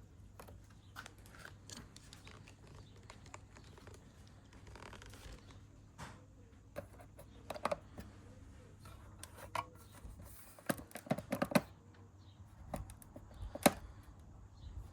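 Scattered small clicks, taps and scrapes of things being handled, coming more often and louder in the second half, with one sharp knock near the end.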